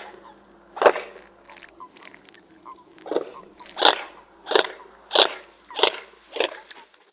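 A bird calling: a series of about seven short, loud calls, each a fraction of a second long, coming faster and more regularly from about three seconds in.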